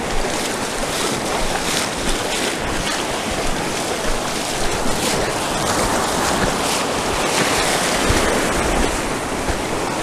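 Ocean surf washing and breaking in the shallows, a steady rush of water, with wind buffeting the microphone.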